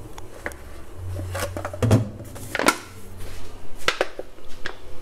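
Hot frying oil in a deep pot crackling, with a few sharp pops or clicks scattered over a steady low hum.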